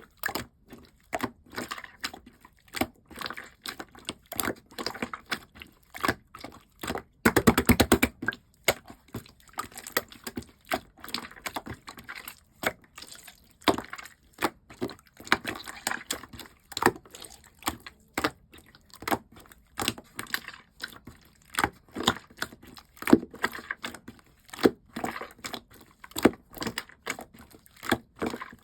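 Clear slime being squished and pressed by hand, giving a steady run of sticky clicks and small air-bubble pops, with a fast, louder rattle of pops about seven seconds in.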